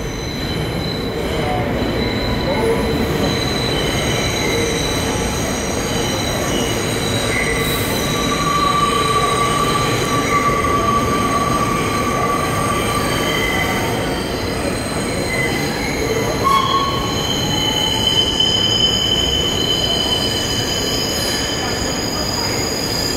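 Vintage Lo-V subway cars rolling slowly into the station. A steady rumble runs under several shrill, drawn-out steel wheel squeals that shift in pitch and come and go.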